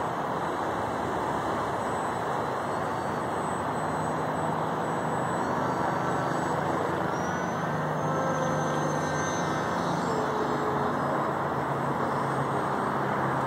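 Distant whine of a foamboard RC jet's BlueWonder 1300Kv brushless electric motor turning a GWS 8060 propeller, its pitch rising and falling, over a steady rushing noise.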